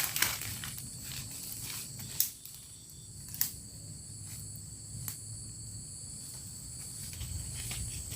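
Insects calling in a steady high drone, with a few sharp clicks and knocks, the loudest about two and three and a half seconds in.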